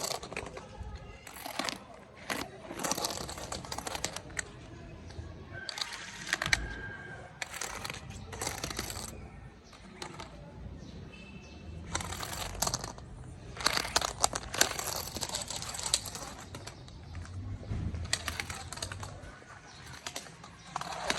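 An interactive cat toy ball rolling and bumping across the floor, with bursts of clicking and rattling that come and go every few seconds.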